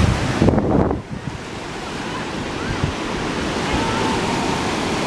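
Ocean surf washing on the beach in a steady rush, with wind buffeting the microphone in the first second.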